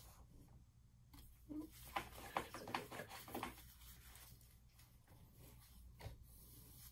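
Light taps and scrapes of plastic paint cups and a paint container being handled, in a short cluster about one and a half to three and a half seconds in, over a low steady hum.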